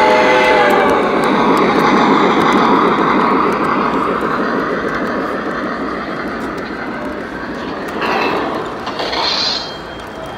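Model steam locomotive and its train of cars rolling past on the layout track: a steady rumble of wheels that eases off toward the end, with a brief louder burst about eight seconds in. The locomotive's chord whistle cuts off just as the rumble starts.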